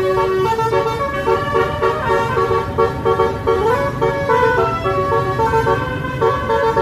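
Telolet bus horn, a multi-tone basuri air horn, playing a tune of short notes that step up and down in pitch, over a low rumble.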